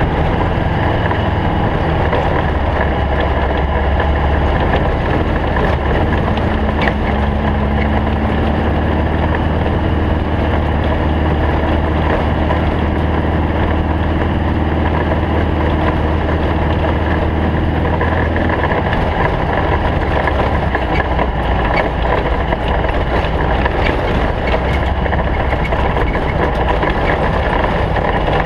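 Stock Volkswagen Beetle race car's engine running steadily at speed, with a strong low drone that eases somewhat about two thirds of the way in.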